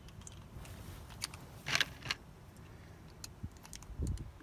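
9mm cartridges being pressed one at a time into a Sig P365 pistol magazine by hand: a scattering of small, irregular metallic clicks, with a duller knock near the end.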